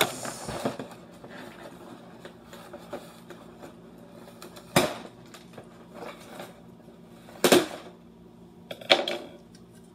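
Toy blaster packaging being handled as a scope is pulled out of the box: a few short crackles and scrapes of plastic and cardboard, with the loudest two about seven and a half and nine seconds in.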